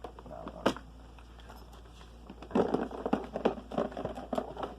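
Fishing tackle being handled and sorted in a plastic tackle box: a sharp click under a second in, then a busy run of small plastic clicks, rattles and crinkling through the second half.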